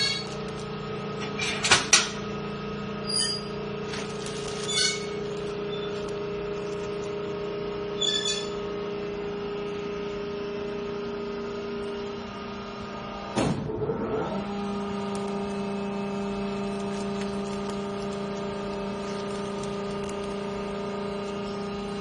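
A bagging baler's motor running with a steady hum while the compressed bale is pushed out into a plastic bag. Sharp knocks come in the first few seconds, the loudest about two seconds in. About thirteen and a half seconds in there is a brief clatter, and after it the hum goes on at a slightly lower pitch.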